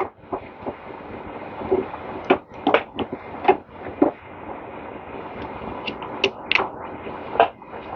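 Irregular knocks and clicks of hand tools and metal engine parts being handled while a small-engine electric starter is removed, over a steady low background hiss.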